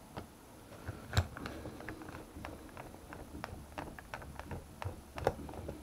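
Small, irregular clicks and taps of a screwdriver and metal carburetor parts being handled during disassembly, with one sharper click about a second in.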